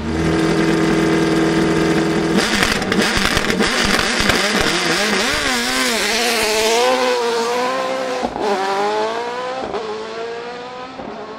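Racing sports prototype engine held at steady high revs on the start line. About two and a half seconds in, the car launches and accelerates hard at full throttle through several quick upshifts, each a rising pitch that drops at the shift. The sound fades near the end as the car pulls away up the hill.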